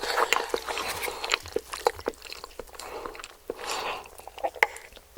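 Close-miked biting and chewing of crispy KFC fried chicken: irregular crackly crunches and mouth clicks, with a brief lull about three seconds in.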